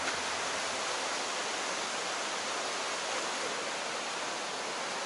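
Mountain river rushing over boulders in a rocky gorge: a steady, even rush of water.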